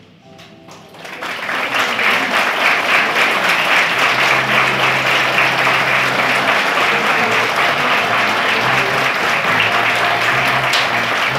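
Audience applauding, swelling up about a second in and then holding steady.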